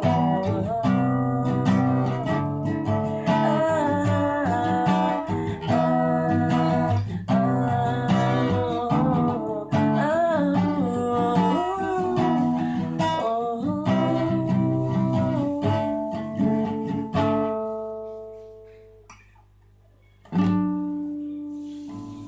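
Song with acoustic guitar and a singing voice, which fades out about three-quarters of the way through. After a moment of near silence, a single strummed guitar chord rings out and dies away near the end.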